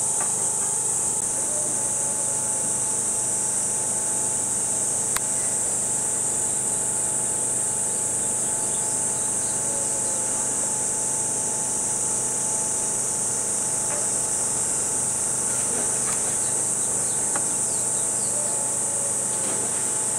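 A steady, high-pitched chorus of cicadas calling without a break.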